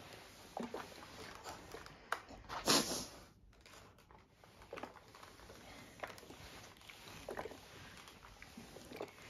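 Quiet rustling of fabric being handled and smoothed on an ironing board, with scattered soft knocks and one louder swish about three seconds in.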